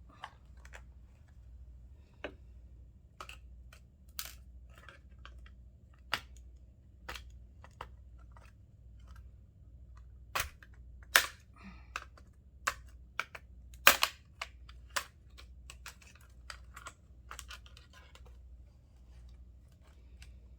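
Irregular clicks and taps of small metal doorknob parts and tools being handled and worked apart by hand, with two sharper clacks about 11 and 14 seconds in, over a faint low hum.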